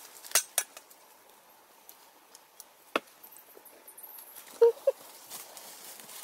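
Dry dead wood being pulled and broken by hand: scattered sharp cracks and knocks over rustling leaves and brush. Two short squeaks about four and a half seconds in are the loudest sounds.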